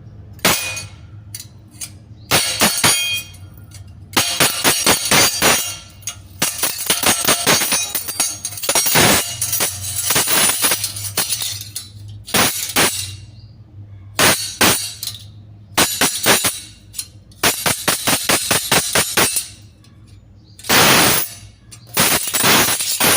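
Steel spoons clattering: bursts of rapid metal-on-metal clinks as handfuls of spoons fall and strike one another, each burst ringing briefly before a short pause, about ten bursts in all.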